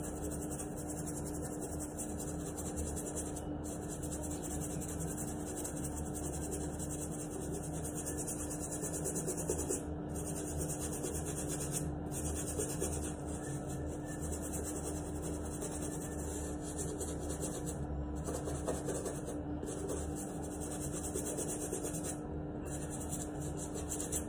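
A toothbrush with toothpaste scrubbing a white sneaker, rapid back-and-forth rubbing strokes that go on steadily, over a steady low hum.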